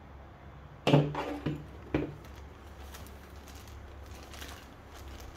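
Tools and parts being handled on a folding worktable: a quick cluster of knocks and clatter about a second in, a single sharp knock near two seconds, then faint handling noise.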